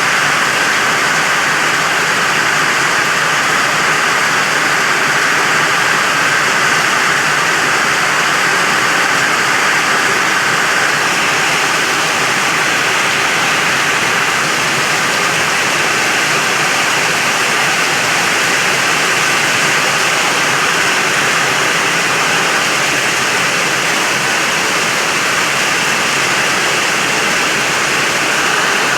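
Heavy rain pouring down, a loud, steady hiss with no letup.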